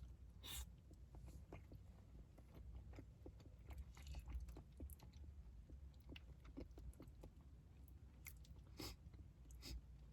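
A person chewing food close to the microphone, faint, with many small wet clicks and a few sharper crunchy bites.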